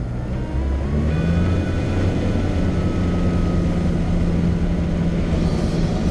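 Cessna 172 piston engine and propeller heard from inside the cabin, revving up about half a second in and then running steadily while the plane taxis.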